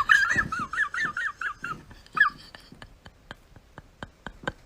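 A high, quickly wavering whine-like cry that stops about two seconds in, followed by a run of faint, evenly spaced ticks, about four a second.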